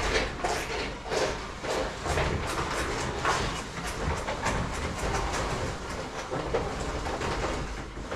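Roller shutter being hauled up by its pull strap: a steady run of rattling clicks, a few a second, as the slats wind up.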